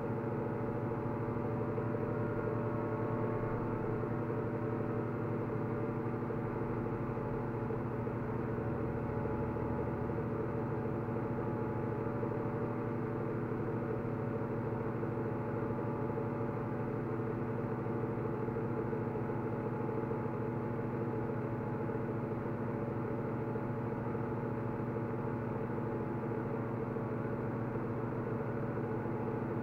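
Steady machine hum made of several held tones that stays level throughout.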